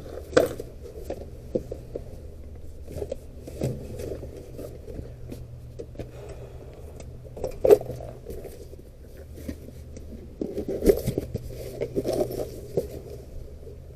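Rummaging through boxes of small lock parts: scattered clicks, rattles and scrapes of parts and boxes being handled, busier in the last few seconds, over a low steady hum.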